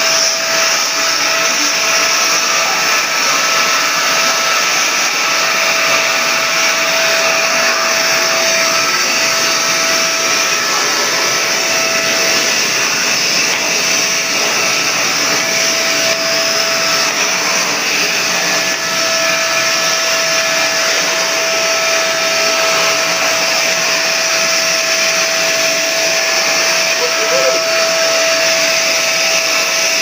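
Kent Vortex 15-litre wet-and-dry vacuum cleaner running steadily at full suction: a loud rush of air through the hose, with a steady whine from the motor.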